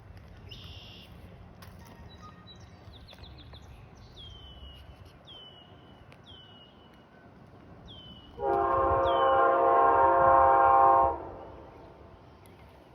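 Train air horn sounding one long blast of about three seconds, several notes held together as a chord, starting a little past halfway. Before it, faint rumble and a bird repeating a short falling chirp.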